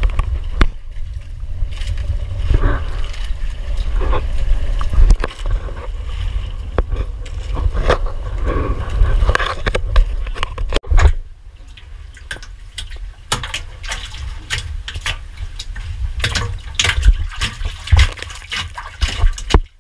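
Water splashing and sloshing around a wooden outrigger fishing boat, over a steady low rumble, with many scattered knocks. The sound drops quieter about halfway through.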